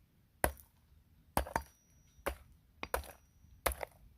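Ice being struck hard to crack it apart: about six sharp knocks, irregularly spaced at roughly one a second.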